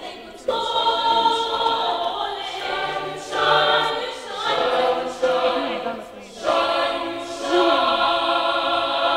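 Swazi choir singing a cappella in harmony. The voices come in about half a second in and sing in phrases with short breaks between them.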